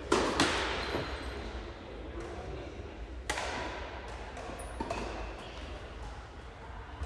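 A few sharp knocks of a tennis ball, struck by racket and bouncing on the court: two loud ones close together just after the start, then single ones about three and about five seconds in.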